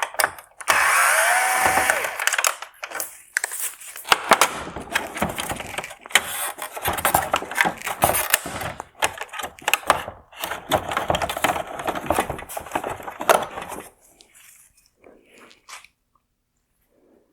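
A small motor whirs for about a second, then many irregular clicks, rattles and scrapes of hard plastic headlight parts being worked at with tools, stopping about 14 seconds in.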